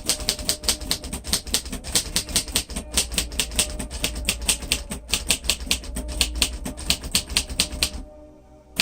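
Typing at a quick steady pace on a 1947 Royal Quiet Deluxe manual typewriter, about five key strikes a second, each typebar snapping against the platen. The typing stops about eight seconds in, followed by one single sharp click near the end.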